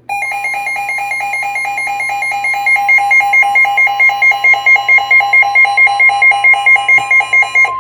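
Weather alert radio sounding its alarm: a loud beeping tone that warbles back and forth about four times a second, over a steady single warning tone. The beeping grows louder a few seconds in and cuts off at the end, leaving the steady tone.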